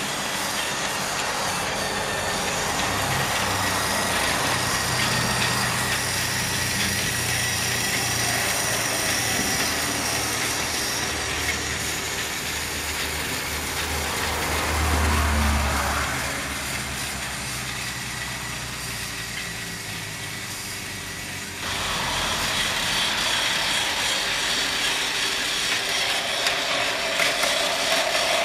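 Battery-powered TOMY Trackmaster toy trains running on plastic track: a steady small electric motor whir with the rattle of the wheels and coaches. The sound changes abruptly about three-quarters of the way through, as a different engine takes over.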